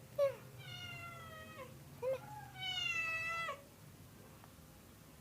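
A domestic cat meowing three times: a drawn-out meow, a short one, then another drawn-out meow.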